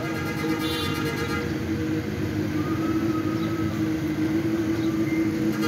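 Street traffic: motorcycles and other vehicles passing on a busy road, their engines giving a steady hum.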